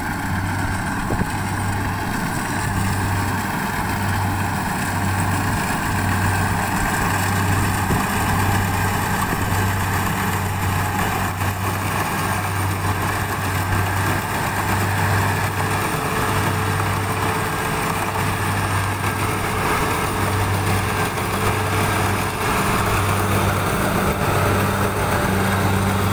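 Tracked rice combine harvester running as it cuts the crop: a steady engine drone with a low hum.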